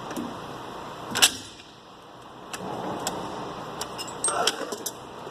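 Drawers of a Snap-on Epic tool chest being opened and shut, with a sharp metal clunk about a second in and a quick run of clicks and rattles near the end.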